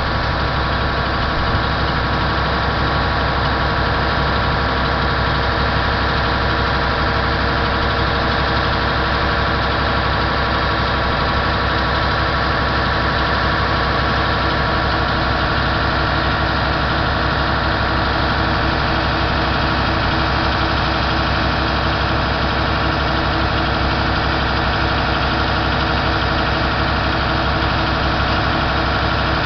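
Mercedes-Benz Actros 3236 truck's diesel engine idling steadily.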